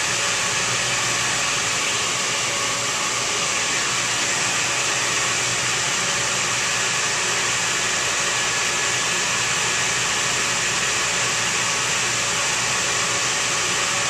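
Dehumidifier running, its fan blowing a steady rush of air into an inflated plastic drying bag, with a faint steady hum under the hiss.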